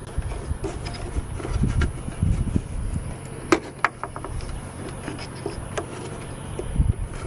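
Scattered sharp clicks and knocks of a pickup's plastic tail light assembly and its wiring connectors being handled, over a low steady rumble.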